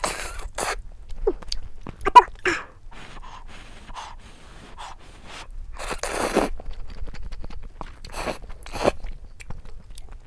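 A person slurping instant ramyeon noodles in a series of sucking slurps, the longest about six seconds in, with softer chewing and mouth sounds in between.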